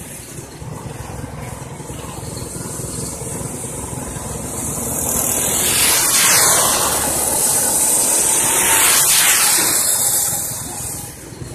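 Race car engines running at speed on a dirt oval, a steady high-pitched drone from the pack. Two cars pass close by about six and nine seconds in, each getting louder and then dropping in pitch as it goes past.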